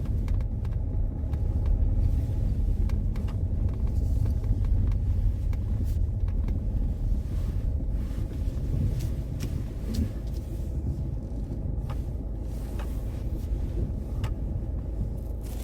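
A car on the move: a steady low rumble of engine and road noise, with a few faint light clicks.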